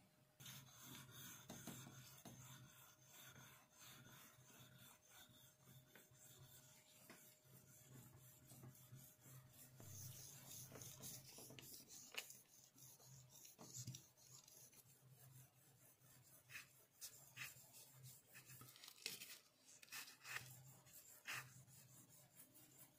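Steel putty-knife blade rubbed back and forth flat on a wet whetstone: a faint, gritty scraping in repeated strokes.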